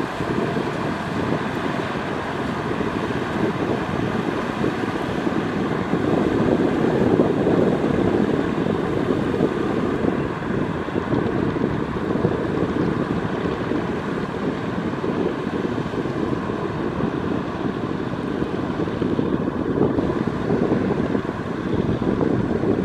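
Kubota M6040SU diesel tractors running steadily under load while their rear rotary tillers churn through flooded paddy mud and water.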